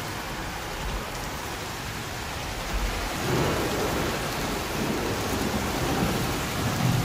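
Thunderstorm: steady heavy rain with a deep rumble of thunder swelling up about three seconds in.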